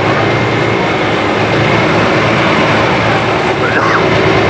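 Diesel engine of a Case IH hot farm pulling tractor running steadily at the end of its pull.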